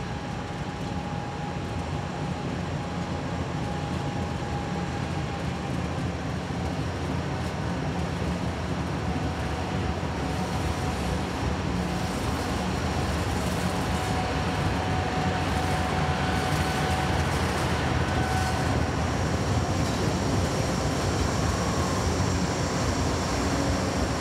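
Train rolling by: a steady rumble that grows gradually louder, with a few faint thin high tones above it.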